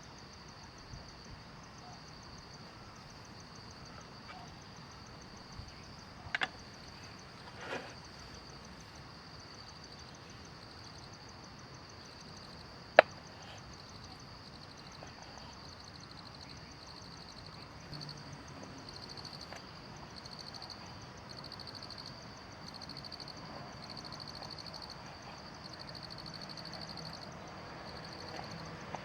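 Insects trilling steadily in the forest, a fast pulsing high-pitched chorus. A couple of knocks come about a quarter of the way in, and a single sharp loud click just under halfway.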